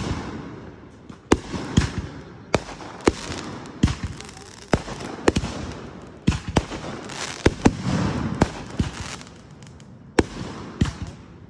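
Aerial fireworks going off: a quick, irregular string of sharp bangs, often more than one a second, each trailing an echo. Crackle and a low rumble fill the gaps between them.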